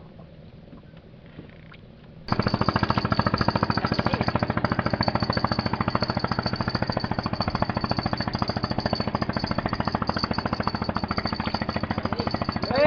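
A small engine running steadily and loudly, a rapid even pulsing over a low hum, which starts abruptly about two seconds in after faint background.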